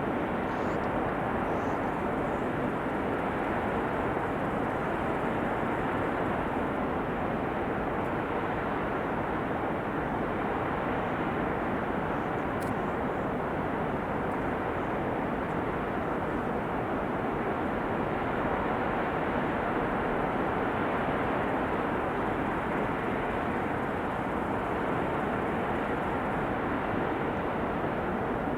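Rushing river water: a steady, dense rush that holds one level throughout.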